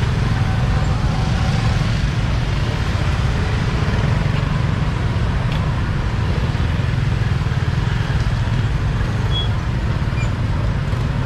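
Motor scooter running at a slow crawl, heard from on board: a steady low rumble, with other scooters and street noise around it.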